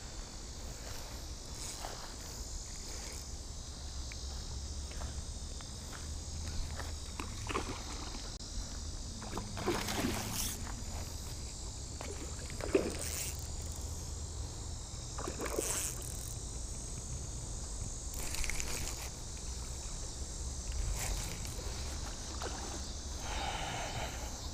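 Steady high buzz of summer insects, with a few brief splashes in the second half from a hooked carp thrashing at the surface.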